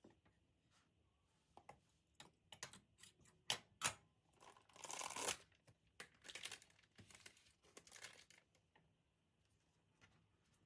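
Small handling noises: a run of sharp clicks and taps, a brief rustle or tearing sound about five seconds in, then a few more taps.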